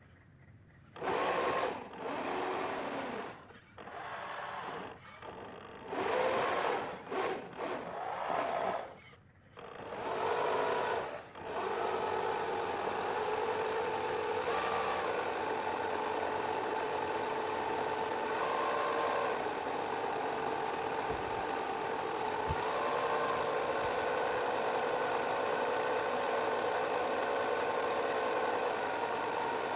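RC model boat's DC 775 electric motor whining, driving a four-blade stainless propeller. It is throttled in short on-off bursts for about the first ten seconds, then runs steadily with a constant whine.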